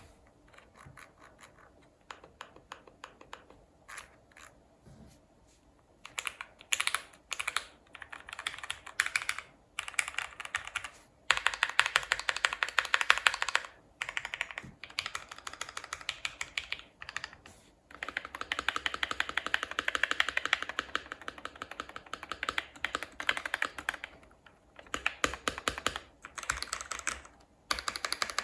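Typing on a modded GMMK Pro mechanical keyboard with lubed and filmed Gateron Yellow KS-3 linear switches, a tape mod and PE foam. A few light keystrokes come first, then from about six seconds in there are fast runs of typing with short pauses between them.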